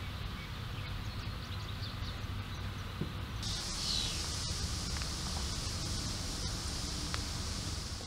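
Outdoor ambience by a park pond: a steady low rumble with a few faint bird chirps, then about three and a half seconds in a steady high hiss takes over.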